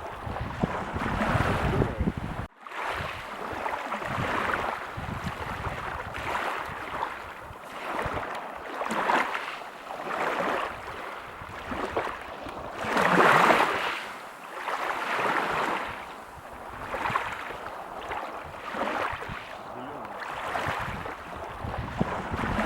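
Ocean waves breaking and washing up on a beach, swelling and fading in repeated surges every couple of seconds, with the biggest wave about thirteen seconds in. The sound drops out abruptly for a moment about two and a half seconds in.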